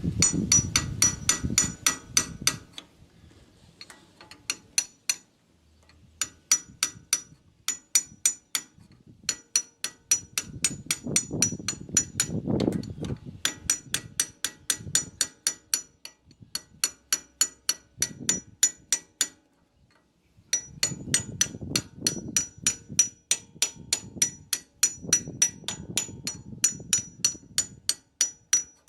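Hammer striking metal in quick runs of blows, about four to five a second, each with a high metallic ring, broken by short pauses.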